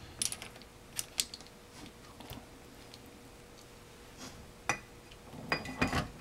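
Light metallic clicks and clinks of steel clutch plates and a side gear as a stacked clutch pack is handled and set into an Eaton Posi limited-slip differential case, with a louder cluster of briefly ringing clinks near the end as the pack goes into the case.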